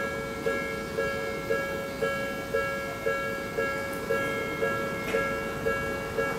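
Railway level crossing bell ringing steadily at about two strikes a second, warning of an approaching train.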